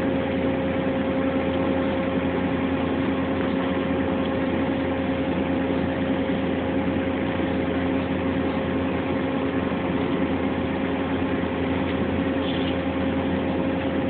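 Steady hum of running machine-shop equipment, a constant drone at one pitch that does not change.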